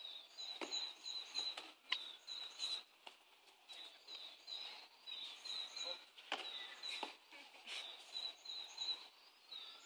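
Small birds singing, runs of short, quick, high chirping notes repeated over and over, with a few sharp knocks here and there.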